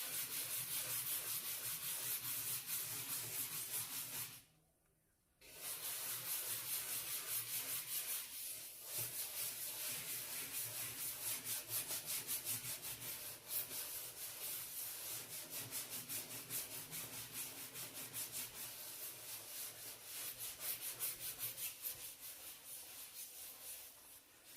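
A brush scrubbing a dirty cooker surface in rapid back-and-forth strokes. The scrubbing stops for about a second around four seconds in, then carries on.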